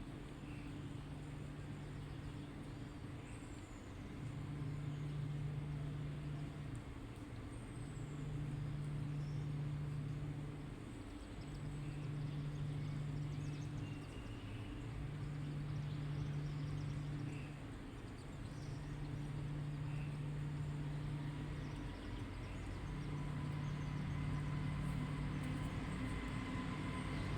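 A low, steady hum that comes and goes in stretches of about two to three seconds, repeating roughly every three and a half seconds, over faint scattered bird chirps.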